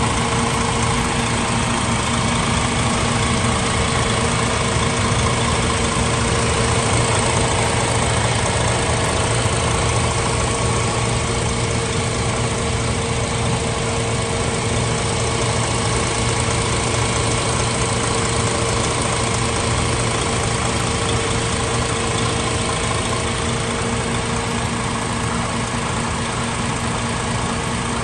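VDL Futura FHD2 coach's diesel engine idling steadily, heard close up at the open rear engine bay, with a steady whine over the engine note.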